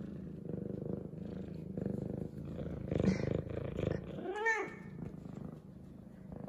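F2 Savannah cat purring loudly and steadily while being petted, with one short rising-and-falling meow about four seconds in.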